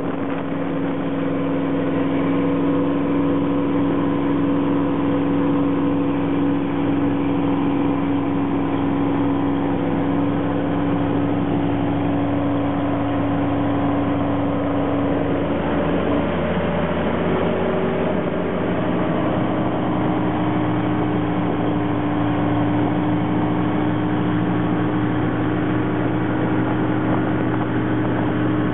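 Motorboat engine running steadily under load while towing a wakeboarder. Its pitch wavers about halfway through, then settles slightly higher.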